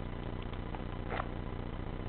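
Steady outdoor background noise with a low rumble, and one short faint sound about a second in.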